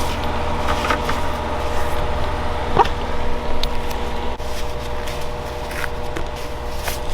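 Rooftop air-conditioning equipment running with a steady low hum and a few steady tones above it. A few light clicks and knocks come through, one about three seconds in.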